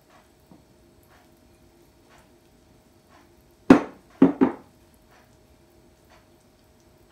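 Kitchenware knocking as a small white bowl is lifted and handled beside a mixing bowl: one sharp knock, then a quick pair about half a second later. Faint soft ticking about once a second runs underneath.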